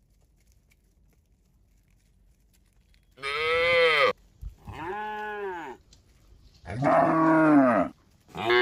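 Cattle mooing: after a few seconds of quiet, a run of moos about a second apart, each rising then falling in pitch. The second is softer, and the last begins near the end.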